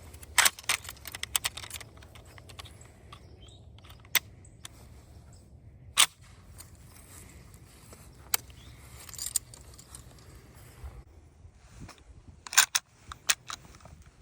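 Sharp metallic clicks and rattles from metal objects being handled: a quick cluster near the start, single clicks at about four, six and eight seconds, and another cluster near the end, over a low steady hum.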